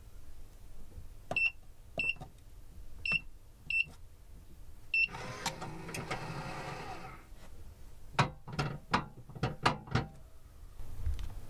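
Electronic in-room safe: its keypad beeps five times as a code is entered, then the motorised bolt whirs for about two seconds as the safe locks, followed by a quick series of sharp clicks.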